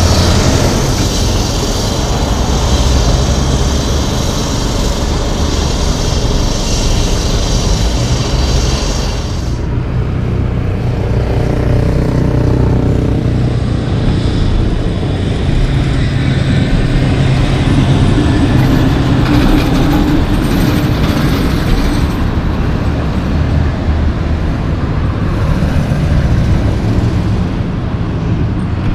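Heavy diesel traffic: a loaded Mack Granite tandem dump truck drives past, then after a sudden change about ten seconds in, steady road traffic with heavy trucks and the hum of their diesel engines.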